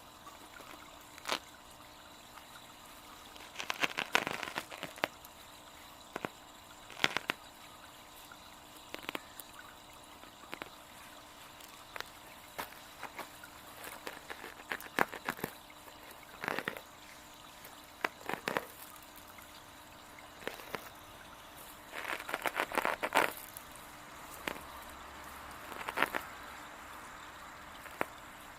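Small garden waterfall trickling steadily, broken by irregular bursts of sharp crackling and snapping, the loudest about four seconds in and again about three-quarters of the way through.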